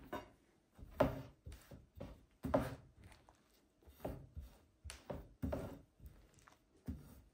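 Thin metal rolling pin (oklava) being rolled back and forth over floured dough on a wooden table, about a dozen uneven strokes, one to two a second.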